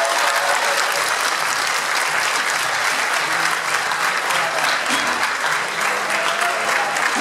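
A large crowd applauding steadily, a dense wash of many hands clapping.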